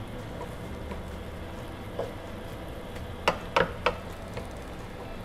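Pork belly and innards sizzling as they sauté in a pan, stirred with a wooden spatula. The spatula knocks against the pan once faintly about two seconds in, then three times in quick succession a little over three seconds in.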